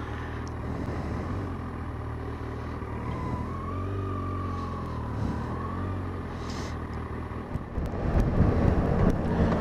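Kawasaki Versys 1000LT's inline-four engine running under way. Its note rises and falls once in the middle, and near the end it gets louder with more wind rumble.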